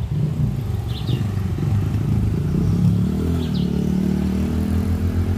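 Cars and a pickup truck driving past on a nearby road, engines running loudly, pitch shifting as they go by. A bird chirps briefly twice above the traffic.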